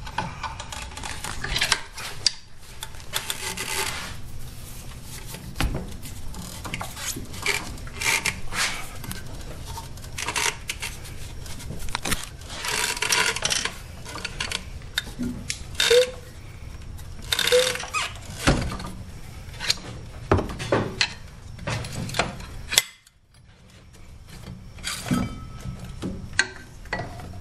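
Hand tools knocking and scraping on the metal of a golf cart's driven clutch, in irregular clanks, clicks and rattles, with a short pause late on.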